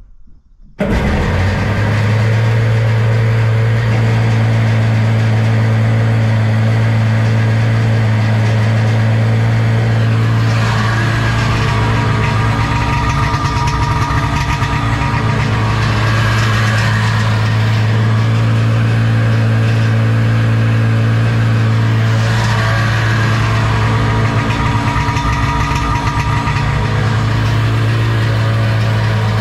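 1996 SeaDoo GSX's two-stroke engine idling steadily, out of the water, while its VTS trim is tested. The engine note comes in abruptly about a second in and holds an even pitch, with two brief brighter, rougher stretches.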